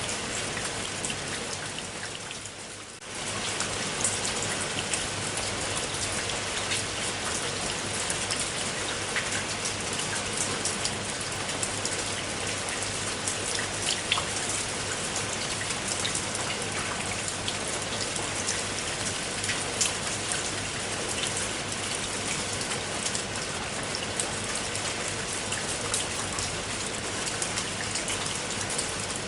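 Steady rain falling, with many individual drops heard as small sharp ticks over an even hiss. The sound fades down briefly, at its lowest about three seconds in, then comes back to full level.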